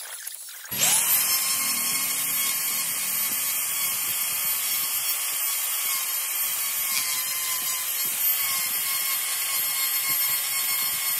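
Electric micromotor carving handpiece running at high speed, a steady high-pitched whine as its burr cuts into hard nu hương burl wood. It comes in abruptly less than a second in, its pitch rising for a moment before it settles.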